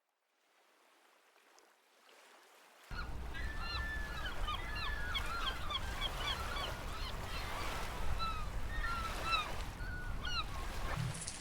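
Seagulls calling over and over, many short arching cries, above a steady low rumble of seaside wind and surf. The calls and the rumble cut in suddenly about three seconds in, after a faint fade-in. Footsteps begin near the end.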